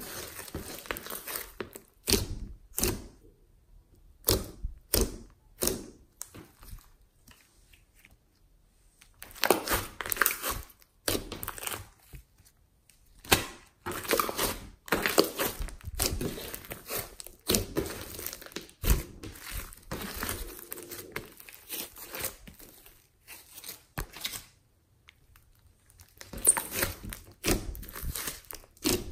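Glossy slime being kneaded, stretched and pressed by hand: sticky crackles and squelches in irregular clusters, with a few brief quiet pauses.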